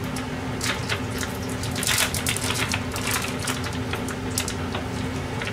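Plastic food packaging crinkling and crackling in the hands as a packet of sliced ham is pulled open, in irregular bursts that are busiest in the middle. A steady low hum runs underneath.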